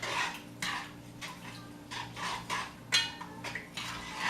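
Rinsed rice being scraped from a bowl into a pot of broth: a string of short, irregular clinks and scrapes of a utensil against cookware, one with a brief metallic ring about three seconds in, over a faint steady hum.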